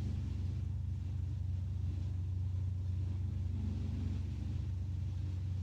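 Steady low background hum with no change in pitch or level.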